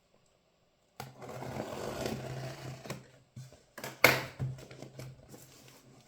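A cardboard box being cut open with scissors: a scraping cut for about two seconds, then a single sharp, loud crack, followed by softer rustling handling.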